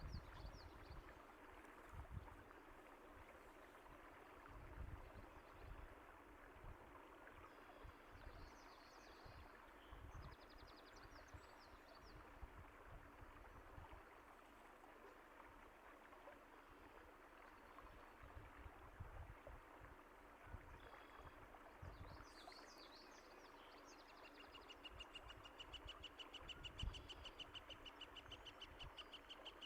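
Faint, steady running water from a stream, with small birds chirping now and then and irregular low thumps underneath. In the last few seconds one bird gives a fast, evenly repeated trill.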